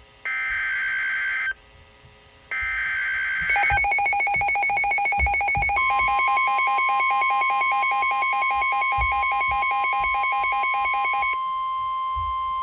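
NOAA Weather Radio SAME alert header: two short bursts of warbling digital data tones, about a second each with a pause between. A pulsing electronic alarm pattern follows, and about six seconds in the steady 1050 Hz weather-radio warning alarm tone joins it, holding on alone after the pulsing stops near the end.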